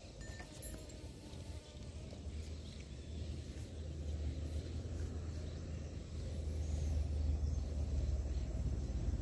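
A low, steady motor drone that grows louder as it approaches.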